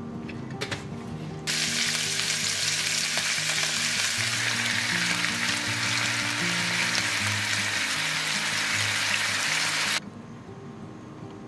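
Meat-and-green-onion skewers sizzling loudly in a hot pan. The sizzle starts abruptly about a second and a half in and cuts off near the end, over soft background music.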